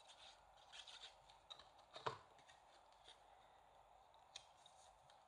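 Faint scattered clicks and rustles of paper and cardstock being handled and pressed down while designer paper is glued on, with a sharper tap about two seconds in.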